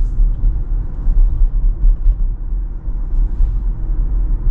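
Steady low rumble of tyre and road noise inside the cabin of a moving Tesla Model Y electric car.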